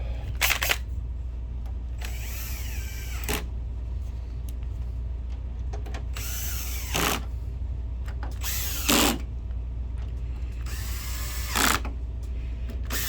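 Electric screwdriver driving in the projector's top-cover screws, in several short runs of about a second each with the motor's pitch sweeping as it spins.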